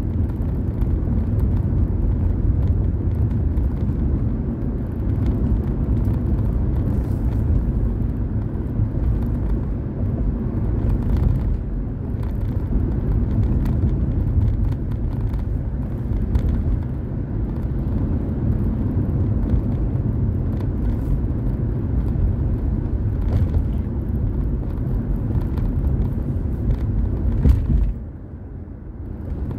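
Car driving, heard from inside the cabin: a steady low rumble of road and engine noise that drops away sharply near the end.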